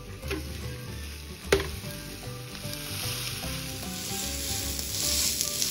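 Minced meat on lavash sizzling as it is laid meat-side down in a hot, lightly oiled pan. The sizzle grows louder over the last couple of seconds as more pieces go in. A single sharp tap comes about a second and a half in.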